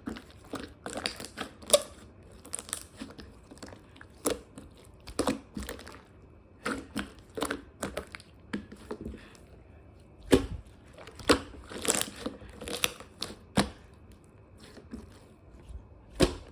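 Close-up, irregular crunching and crackling as something is handled, in quick clusters with short pauses and a few louder snaps.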